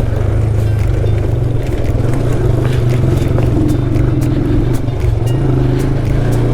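Motorcycle engine running steadily at low speed on a rough trail, with scattered knocks and rattles.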